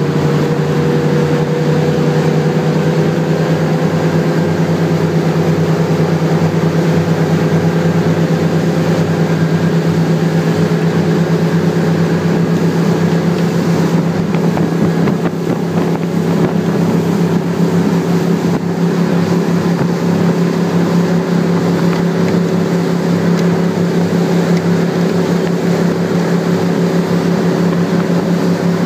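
Motorboat engine running steadily under way, a constant low hum whose pitch settles slightly lower a few seconds in, over a haze of rushing water and wind noise.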